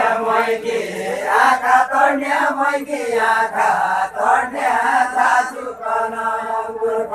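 A group of voices singing a deuda folk song together, a chant-like chorus in drawn-out phrases of about a second each, with no instruments.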